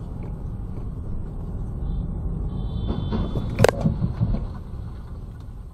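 Road collision between cars heard from inside a car's cabin: a steady low rumble of engine and road noise, a brief high squeal, then about three and a half seconds in a single loud crash of metal, followed by a few smaller thuds and clatter.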